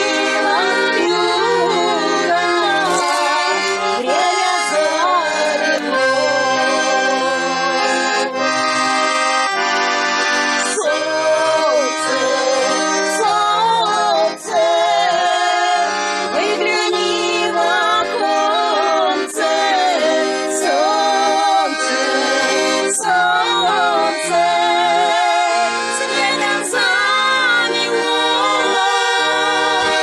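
A piano accordion plays a Russian folk-style song while women sing along with vibrato.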